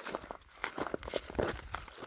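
Footsteps of a person walking on outdoor ground, a run of uneven scuffing steps.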